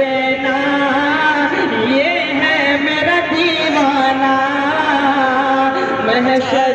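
A male voice singing a naat in long, drawn-out held notes that waver and bend in pitch.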